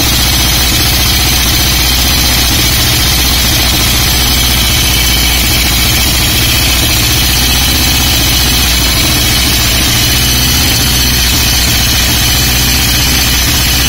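Old Royal Enfield Bullet single-cylinder pushrod engine idling steadily with its rocker covers off, the exposed rockers and valves clattering as they move. This valve noise is common on these engines.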